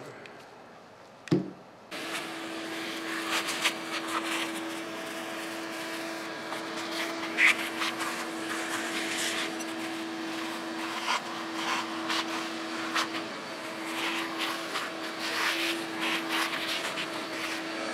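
A shop vacuum starts about two seconds in, just after a sharp knock, and runs with a steady hum. Its hose sucks metal chips off a milling machine vise and table, and the chips rattle and click as they are drawn in.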